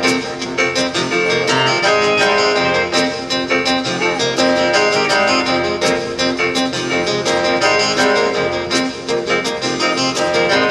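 Live country band playing an instrumental passage, with electric keyboard in piano voice over a steady drum beat.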